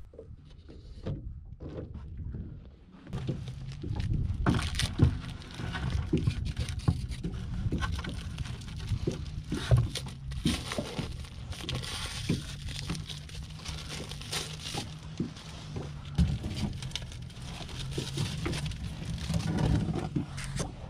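Handling noise as a chum pot is made ready: the plastic wrapping of a chum pack rustling as it is cut open with a knife, with knocks and scrapes of gear against a bucket and the boat. The clatter starts about three seconds in, over a steady low hum.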